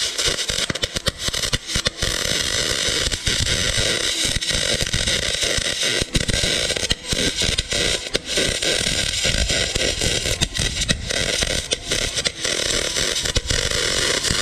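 Electric arc welding on a motorcycle swingarm's monoshock mount: a steady crackling, spitting hiss, peppered with sharp pops, that cuts off abruptly at the end.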